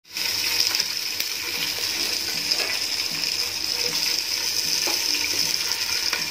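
Pressure-cooked mutton pieces sizzling steadily in a little hot oil in a nonstick pot, stirred with a spatula, with a few light clicks of the spatula.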